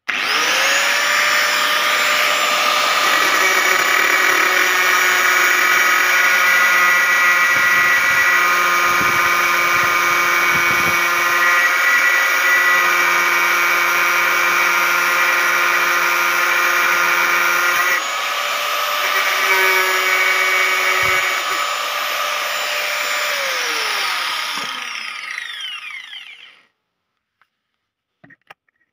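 Black & Decker 820 W angle grinder spinning up and running at speed with a steady high whine as its cutting disc cuts through a rusty steel rebar rod. The note shifts about 18 seconds in, and near the end the grinder is switched off and winds down with a falling whine, followed by a few faint clicks.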